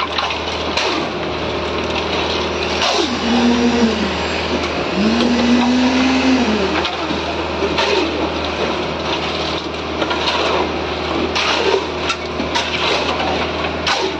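Steady hum of running site machinery over the scrape and clatter of wet concrete being worked, with scattered knocks. A person's drawn-out call rises and holds twice, about three to seven seconds in.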